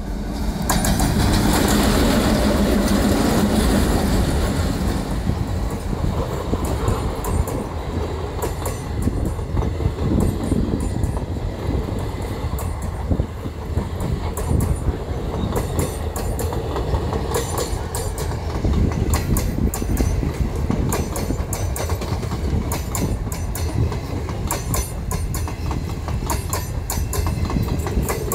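A train hauled by twin ALCO diesel locomotives passing close by: the locomotives are loudest in the first few seconds, then the coaches' wheels clatter steadily over the rail joints.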